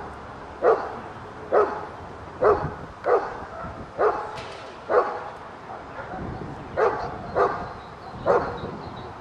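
Briard barking at a man crouched close in front of it while it stands over a basket, guarding the object. About nine sharp barks come roughly a second apart, with a short pause after the fifth.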